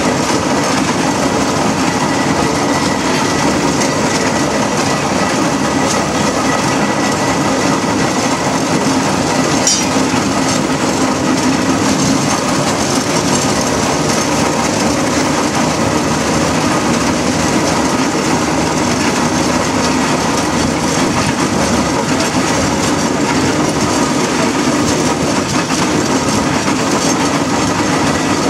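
Steam road engine on the move along a lane, heard from aboard the road train behind it: a loud, steady mix of engine running noise and rattling wheels on the road.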